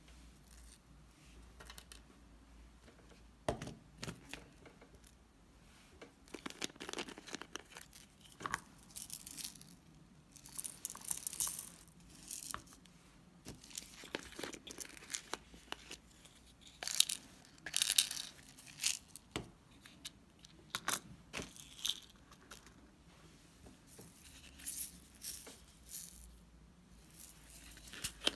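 Small plastic containers and packets of cake sprinkles being handled and poured into plastic lids. The result is a string of crinkly, tearing rustles and light clicks and rattles, with a few sharper clacks past the middle.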